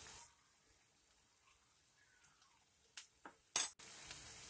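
Near silence, then two faint clicks and one sharp click about three and a half seconds in, followed by faint hiss.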